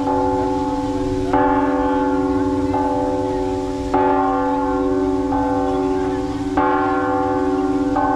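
Cathedral church bells ringing, struck about every second and a quarter, six strokes in all, alternate strokes a little different in tone, each ringing on into the next.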